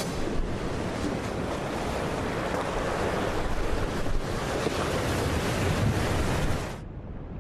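Ocean waves breaking and surf rushing, with wind buffeting the microphone. Near the end the sound drops suddenly and turns duller.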